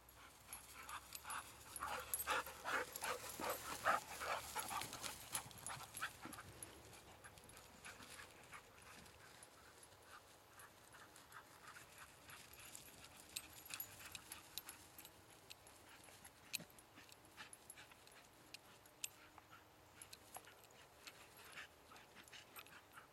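Dog panting in quick, rhythmic breaths for the first few seconds, then only faint rustling and scattered small clicks.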